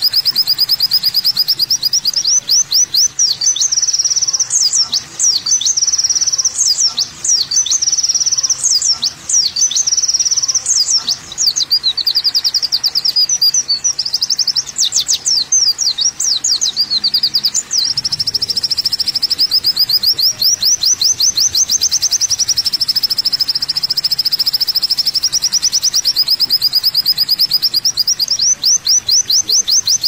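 Kolibri wulung (sunbird) song: a fast, high-pitched stream of chirps and trills that settles about halfway into an even run of rapid repeated notes.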